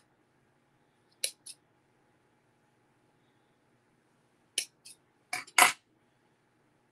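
Small black spring-action thread snips clicking and snipping while silver cord is handled, in a few short sharp pairs: one about a second in, two more between four and a half and six seconds in, the last pair the loudest.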